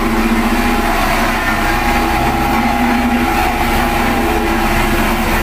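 Cat CS533E single-drum roller's diesel engine running steadily, a constant drone with a few steady tones, as the roller moves slowly over loose gravel.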